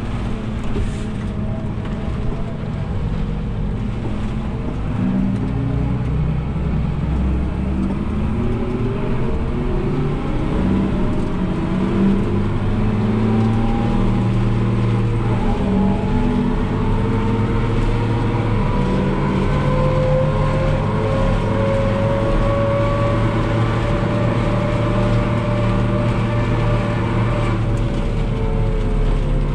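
New Holland TM165 tractor running under load, pulling a full silage trailer on the road, heard from inside the cab. It runs steadily, with a whine that climbs slowly in pitch as the tractor gathers speed.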